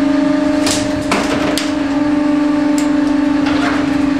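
Steady hum of a fishing boat's engine, with a few sharp knocks and thumps on deck, about a second in and again near the middle, as a landed swordfish is handled.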